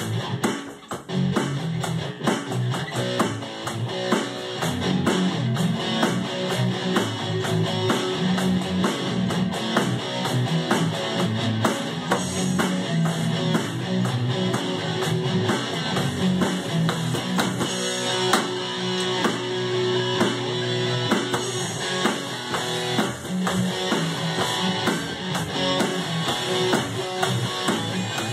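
Instrumental rock music: strummed electric guitar over a steady drum beat played on an electronic drum kit.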